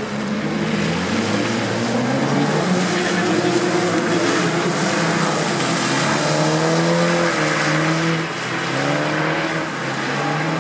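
BMW Z4 roadster sliding on a wet track: its engine note rises and falls in pitch with the throttle, over the hiss of tyres on the wet surface, easing off briefly twice near the end.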